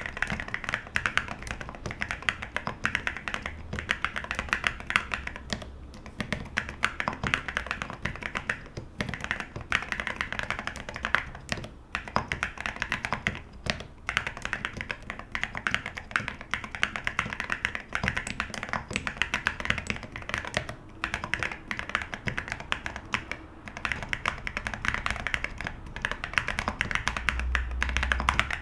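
Steady, fast typing on a Geonworks Frog Mini mechanical keyboard with hand-lubed OwLab London Fog switches, an aluminum plate and Cerakey ceramic keycaps: a dense stream of keystrokes with a few brief pauses.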